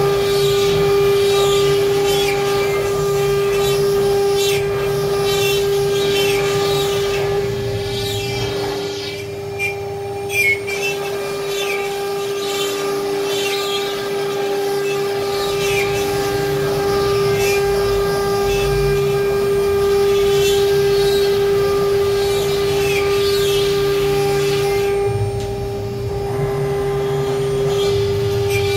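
CNC router spindle running with a steady high-pitched whine while its bit cuts, the grating cutting noise coming and going over it. The cutting noise drops away for a couple of seconds about a third of the way through and again near the end, leaving the spindle whine.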